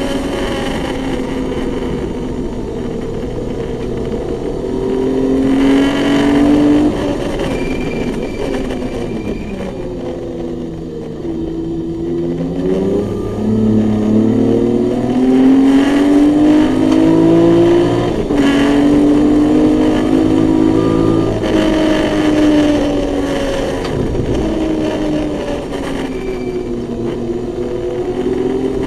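BMW E21 race car's naturally aspirated 2.7-litre M20 straight-six heard from inside the cabin, revving hard: the engine note climbs under acceleration and drops as the car slows for corners. It is lowest about ten to twelve seconds in, then climbs steadily for several seconds.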